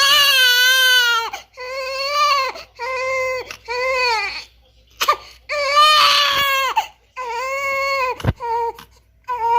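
Newborn baby crying: a string of about eight wailing cries, each half a second to a second and a half long, with short gasps for breath between them.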